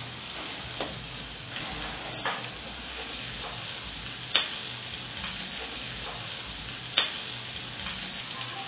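Omena and onions frying in oil in a pan with a steady sizzle, stirred with a spatula that knocks against the pan several times, most sharply about four and a half and seven seconds in.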